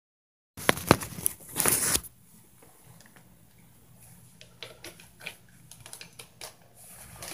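A few sharp clicks and a short rustle within the first two seconds, then faint, irregular knocks and taps.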